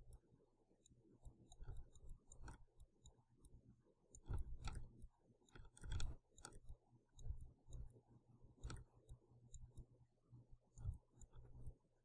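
Faint, scattered clicks and soft knocks of a computer mouse being clicked and dragged while sculpting, over a low steady hum.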